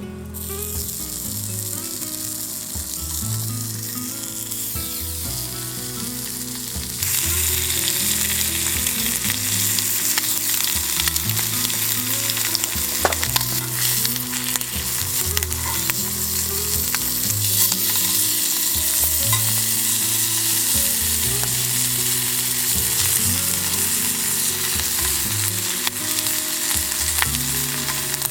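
Food frying in a pan over heat, a steady sizzle that gets noticeably louder about seven seconds in. Soft background music with low notes plays underneath.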